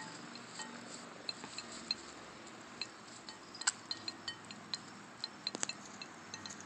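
Hens pecking at their food: scattered, irregular sharp taps and clicks of beaks, a couple of them louder.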